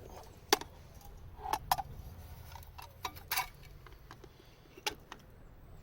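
Scattered sharp clicks and knocks, about five in a few seconds, the sharpest about half a second in, over a low steady rumble.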